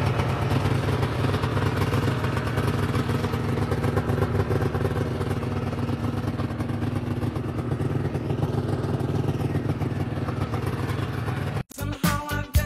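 Vintage Polaris Indy snowmobile's two-stroke engine running steadily. Near the end it cuts off and funk music starts.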